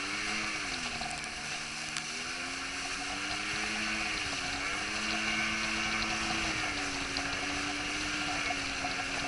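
Jet ski engine running at speed, its pitch rising and falling several times as the throttle changes, over a steady hiss of rushing water and spray.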